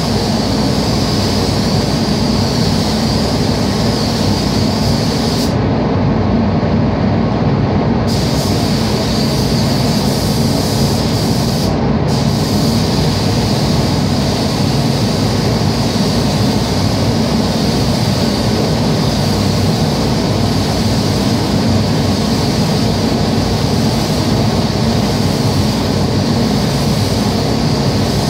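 Automotive paint booth's ventilation fans running with a steady rumble, under the hiss of a compressed-air paint spray gun. The high hiss cuts out for about two seconds around six seconds in and again briefly near twelve seconds, as the gun trigger is released, while the fan rumble carries on.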